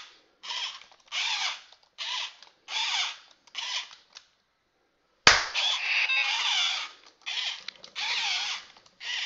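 Program-a-bot toy robot's small gear motors whirring in repeated short bursts, each about half a second, as the freshly switched-on robot moves. A single sharp click about five seconds in is the loudest moment.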